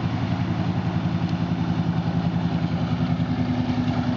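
Wooden motorboat's engine running steadily as the boat cruises past under power, a deep even drone with a fast regular throb.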